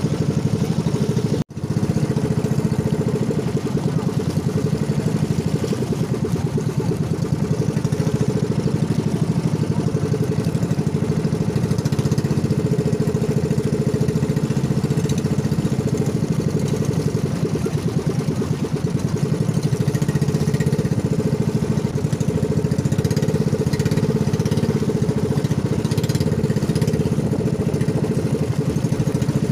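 Small engine of a motorized outrigger boat running steadily under way, with a brief dropout about a second and a half in.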